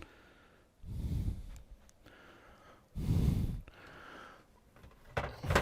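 A man breathing heavily close to the microphone: two loud huffing exhales, about a second and three seconds in, with quieter breaths between them and another huff near the end.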